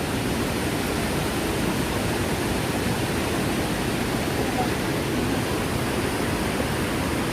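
Waterfall: a steady rushing noise of falling water, even throughout and heaviest in the low range.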